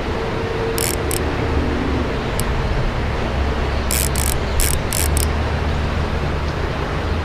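Fishing reel drag giving line in short ratcheting bursts, twice near the start and five quick ones about four seconds in, as a hooked smallmouth bass pulls against it.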